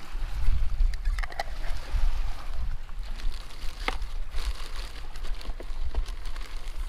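A low, uneven rumble, with a few light handling clicks and a brief rustle of a plastic bag about four seconds in.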